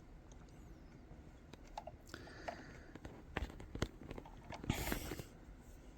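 Faint handling of small plastic keyboard-switch parts: scattered light clicks and taps, with a brief rustle about five seconds in.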